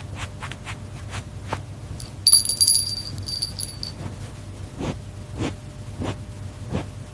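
A series of sharp clicks and taps, with a bright, high metallic jingling ringing for about two seconds near the middle, over a low steady hum.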